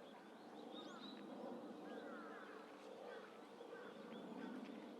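Faint twittering of small birds, with many short overlapping chirps, over a steady low background hum.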